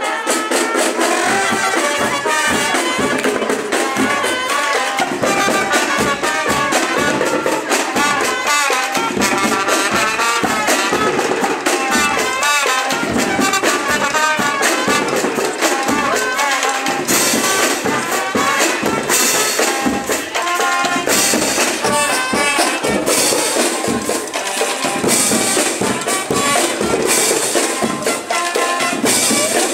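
Marching-band music with brass and drums playing a steady beat.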